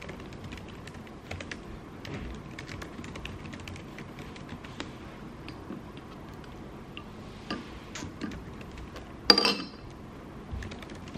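Typing on a MacBook laptop keyboard: light, irregular key clicks, with one louder short knock about nine seconds in.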